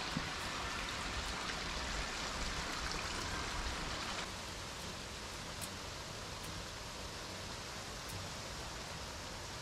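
Steady rushing noise of running water, dropping slightly in level about four seconds in.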